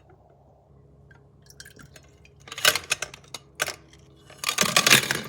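Clinks and knocks of an electric kettle and its loose top being handled, in two clusters of sharp hits, about halfway through and near the end.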